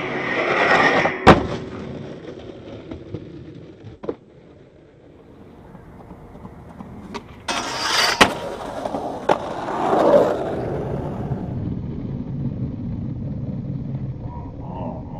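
Skateboard wheels rolling on pavement, broken by several sharp clacks of the board hitting the ground, the loudest about a second in.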